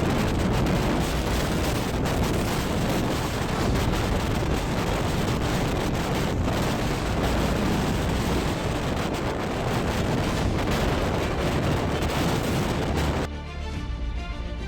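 Strong typhoon wind buffeting the microphone: a dense, steady rush with repeated thumps from the gusts. About thirteen seconds in it cuts off suddenly and background music takes over.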